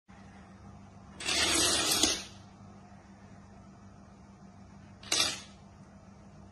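A row of dominoes toppling one after another in a chain, a rapid clatter lasting about a second. A second, shorter clatter comes about five seconds in.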